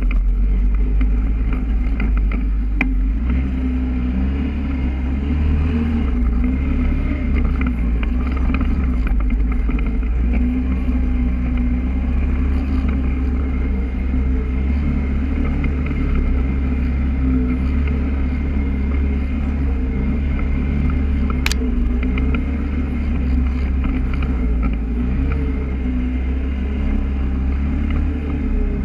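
Polaris ATV engine running steadily under way with a constant low hum. There is one sharp click about two-thirds of the way through.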